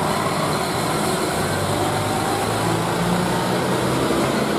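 Diesel engine of a large mining haul dump truck running steadily as the truck drives past close by, a deep engine drone with a slight shift in pitch about three seconds in.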